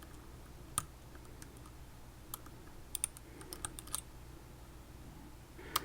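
Small irregular metallic clicks and ticks of a lock pick and tension wrench working the pins inside a Mul-T-Lock Jr lock, with the sharpest clicks about a second in and near the end.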